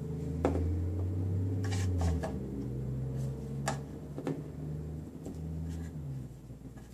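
Light clicks and taps of small toy puppy figures being handled and set on a plastic playground playset, about seven scattered ticks, over a low steady hum that is stronger in the first two seconds.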